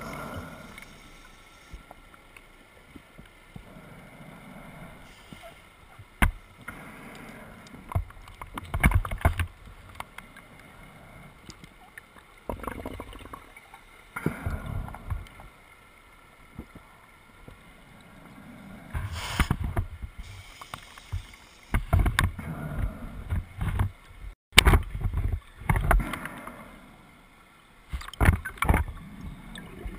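Scuba diver's regulator breathing heard underwater: irregular gurgling bursts of exhaled bubbles every few seconds.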